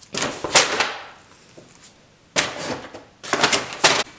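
Brown paper grocery bag crinkling and rustling as it is handled, with plastic slime tubs shifting inside it, in three bursts with short pauses between.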